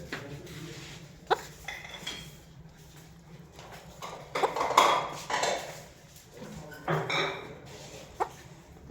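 Indian ringneck parakeet vocalising in short, shrill bursts: a sharp squeak a little over a second in, a louder harsh outburst in the middle, another a couple of seconds later and a brief squeak near the end.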